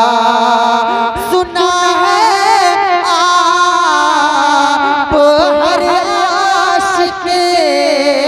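Male naat reciter singing a long melodic passage into a microphone, the held notes wavering and sliding in ornamented runs.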